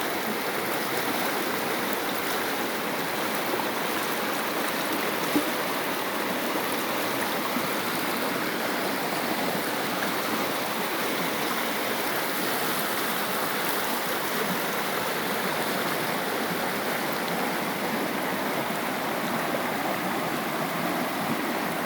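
Steady rushing of running water, like a stream, with one brief click about five seconds in.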